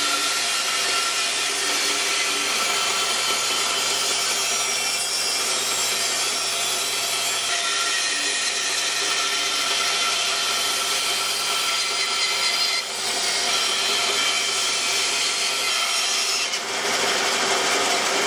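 Band saw running and cutting a curve through a bark-covered log to free a round bowl blank: a steady motor and blade hum under the rasp of the blade in the wood, dipping briefly twice in the second half.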